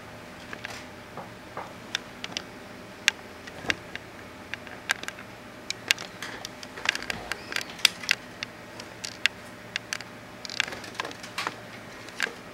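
Irregular small clicks and taps, with a few brief scrapes, from hands working a plastic solderless breadboard and its jumper wires.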